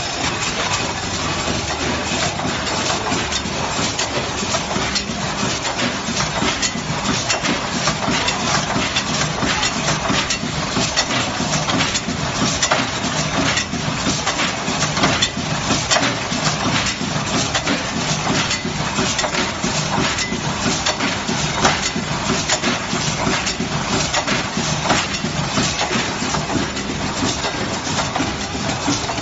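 Automatic corn-kernel weighing and packing machine running: a dense, continuous clatter of many small clicks and knocks as the multihead weigher's hoppers cycle and kernels pour through, over a steady low machine hum.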